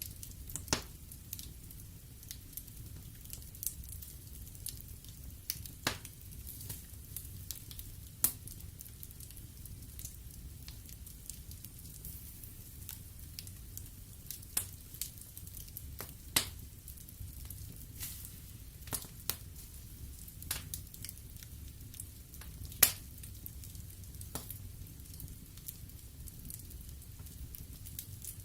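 Wood fire crackling in a fireplace: irregular sharp pops and snaps over a steady low rumble of the flames, the loudest pop about three-quarters of the way through.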